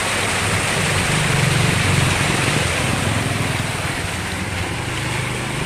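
Steady rush of stream water pouring down a small cascade.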